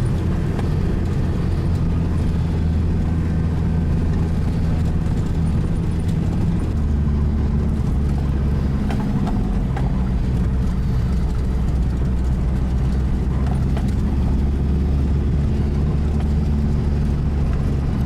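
Vehicle engine running steadily under way, a low hum whose pitch shifts about seven seconds in.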